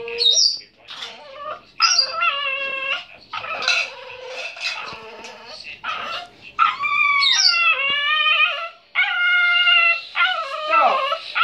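A dog whining and howling to beg for its dinner while its food is being dished up: a run of drawn-out, wavering calls, about a second or more each, broken by short high squeaks.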